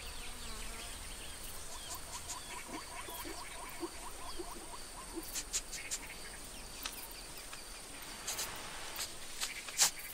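Quiet savanna nature ambience: a faint steady hiss with a run of small chirps, several a second, in the first few seconds, and a few soft clicks and taps later on.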